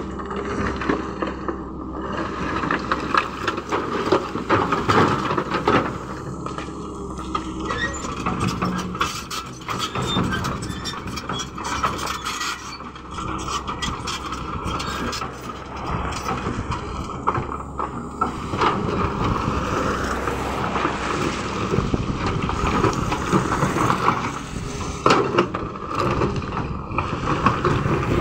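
Tracked hydraulic excavator running steadily while its steel bucket scrapes through rocks and soil in a trench, with stones clattering and knocking against the bucket many times.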